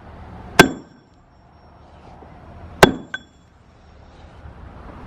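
Two heavy blows of a steel maul on thick concrete, about two seconds apart, the second followed by a small rebound knock. Each strike ends in a short metallic ring from the maul head.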